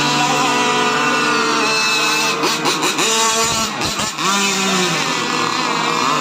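Several radio-controlled racing boats' motors running at high speed together, each at its own pitch. Some drop in pitch and climb back around the middle as the boats throttle off and on again.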